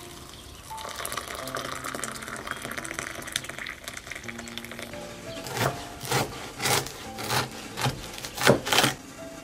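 Water pouring from a teapot into a glass mug, then a knife sawing through the crust of a loaf of Borodinsky rye bread in about seven strokes, roughly two a second. Soft background music plays throughout.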